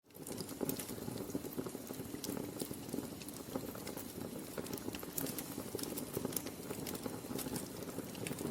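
Wood fire crackling in a fireplace, with irregular sharp pops and snaps over a steady hiss of flames.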